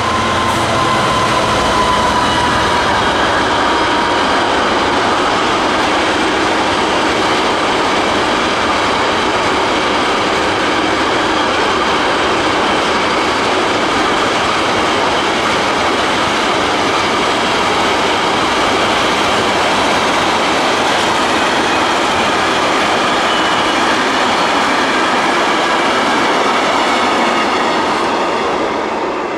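Intermodal container train passing. The Class 66 diesel locomotive's engine dies away in the first moments, followed by a steady rush of steel wheels on rail from the long rake of container wagons. The noise fades near the end as the last wagon goes by.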